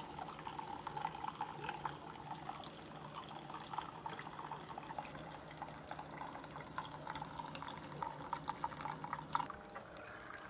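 Two Keurig single-serve coffee makers brewing at once: a steady low machine hum under brewed coffee streaming and spattering into glass mugs. About nine and a half seconds in, the hum stops and the streams thin to a dribble as the brew ends.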